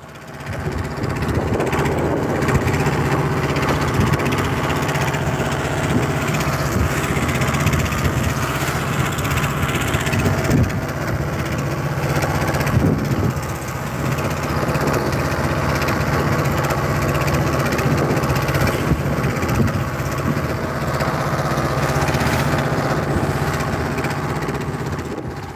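Fishing boat's engine running steadily with the boat under way, with water and wind rushing past the hull; it comes in during the first second and holds level.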